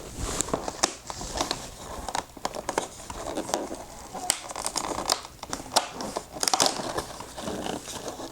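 A cardboard advent calendar door being opened and its contents handled: paper and cardboard crinkling and crackling in many short sharp clicks.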